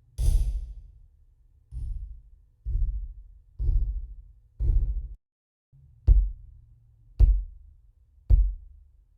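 Hammer striking a hard surface eight times, roughly once a second, each blow dying away quickly. The middle blows sound duller, and the last three are sharper.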